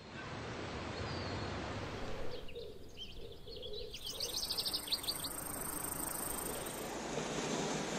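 Outdoor nature ambience: a steady background hiss with a quick run of short rising bird chirps a couple of seconds in. A thin, high, steady insect trill runs from about four seconds in to about seven.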